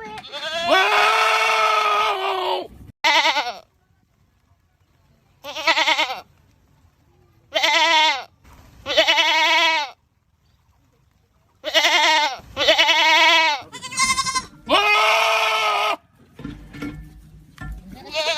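Goats screaming: a string of about ten loud, wavering, human-like bleats, each half a second to two seconds long, with short silent gaps between them and abrupt starts and stops.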